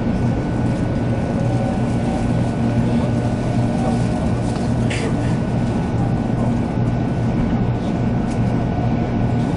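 A 300 series Shinkansen train running along the line, heard from inside a passenger car: a steady rumble with a low, even hum, and one brief higher-pitched noise about five seconds in.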